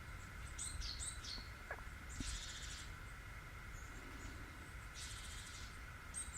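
Small birds calling: a few quick sharp chirps about a second in, then a buzzy, trilled high call that comes twice, about two and a half seconds apart. Under them a steady high drone and a low rumble run on.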